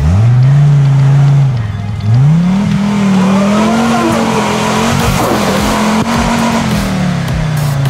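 Off-road buggy's engine revving hard as it claws through deep mud. The revs jump up sharply at the start, dip about two seconds in, climb again and hold high for several seconds, then fall away near the end.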